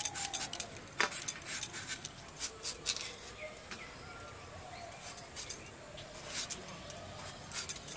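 Irregular sharp clicks and scrapes of a potato being peeled and cut against a bonti, a curved kitchen blade held upright on the floor, busiest in the first few seconds and again near the end.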